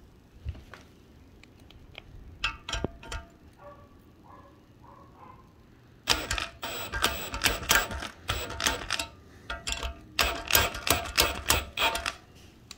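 Metallic clicking and clattering as a homemade valve-spring compressor is worked on a BMW M54 cylinder head, pressing down a valve spring so the valve locks can go in. A few scattered clicks at first, then rapid dense clatter from about halfway, in two spells with a short pause between.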